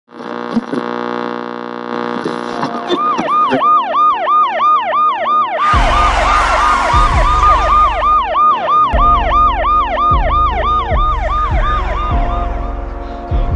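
Emergency-vehicle siren yelping in fast rising-and-falling sweeps, about two a second, over a musical intro of held chords. A heavy bass beat comes in under the siren about six seconds in, with a short rush of noise.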